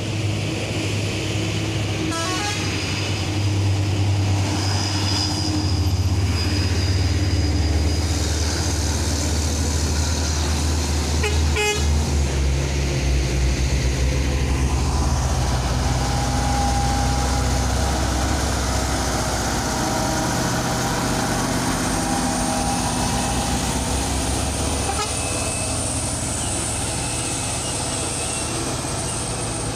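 Heavy diesel trucks climbing a steep hill under load, their engines running low and steady, with horns tooting now and then.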